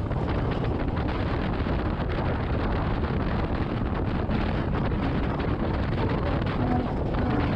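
Motorcycle riding at road speed: a steady rush of wind buffeting the microphone, with engine noise running underneath.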